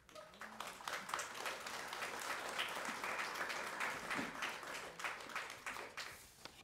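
Audience applauding: many hands clapping, swelling within the first second and dying away near the end.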